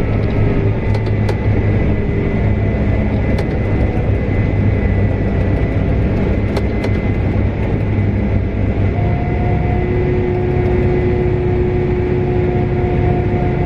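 Harvest farm machinery running steadily: a deep engine drone with a steady whine over it. Two more whines join about two thirds of the way through, with a few faint clicks.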